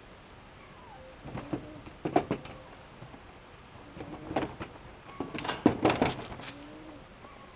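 A kitten playing in a wire crate: scattered bursts of clattering and knocking as it pounces on the plastic floor tray and bats against the wire and its toys, the loudest flurry about five to six seconds in.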